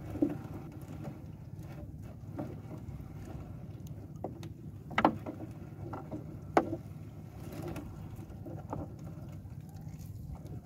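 A gill net being hauled by hand into a wooden outrigger canoe, with a few sharp knocks on the boat; the two loudest come about five and six and a half seconds in. A steady low rumble runs underneath.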